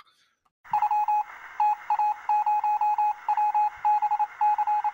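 Telegraph-style beeping: a single steady tone keyed on and off in short and long pulses like Morse code, over a steady hiss of radio static, starting a little under a second in. It is the news-alert intro sting of the podcast.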